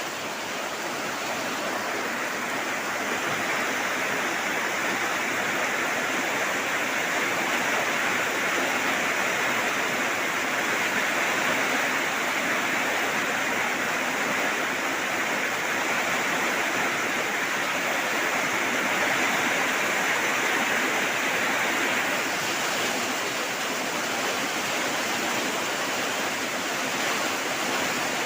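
Steady heavy rain: a dense, even hiss with no single drops or gaps standing out.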